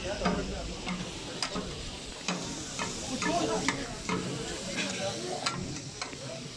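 Chicken sizzling on a large flat metal griddle (tawa) while two metal spatulas scrape and clack against it, giving a steady hiss broken by many quick, irregular clinks.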